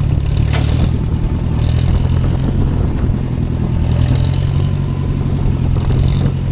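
Small farm tractor's engine running steadily as it drives, a loud even low drone, with a few brief hissy bursts on top.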